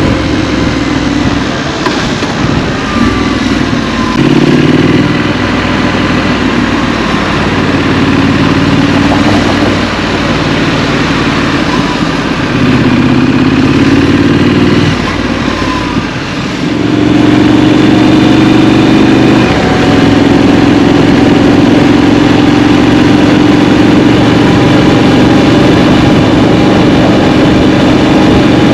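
Triumph Street Scrambler motorcycle engine heard from the rider's seat, pulling up in pitch in several short rises as the bike gets going, easing off briefly a little past halfway, then running at a steady cruise, with wind and tyre noise underneath.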